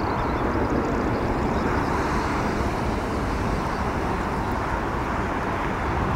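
Boeing 777 freighter's twin GE90 turbofan engines at takeoff thrust during the takeoff roll and rotation: a steady, dense rush of jet noise.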